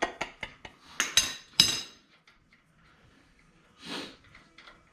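Metal hand tools clinking and clanking: a run of sharp clicks, then two louder ringing metallic strikes about a second and a second and a half in. A short soft hiss follows near the end.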